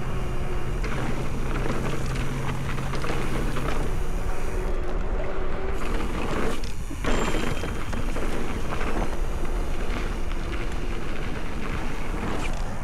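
Steady wind rush and rumble on an action camera's microphone while riding an electric mountain bike on a dirt trail, with a short lull about seven seconds in.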